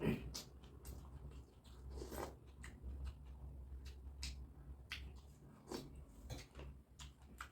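Close-up chewing and wet mouth clicks of someone eating chicken momo dumplings, irregular short smacks over a low steady hum.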